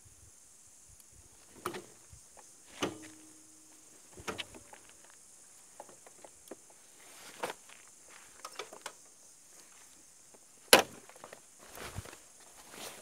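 Scattered scuffs and knocks, the loudest a sharp knock near the end, over a steady high-pitched insect drone from the surrounding forest.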